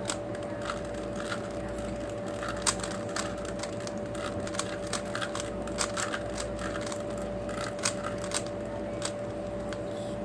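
3x3 puzzle cubes being turned quickly during a solve: irregular plastic clicks and clacks, several a second, over a steady hum.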